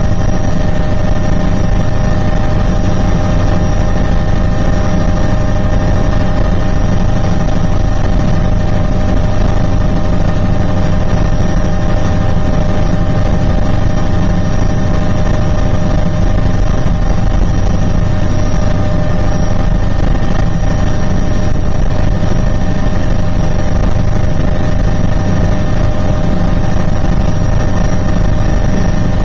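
Helicopter engine and rotor noise heard from inside the cabin: a loud, steady drone with several constant whining tones over a low rumble.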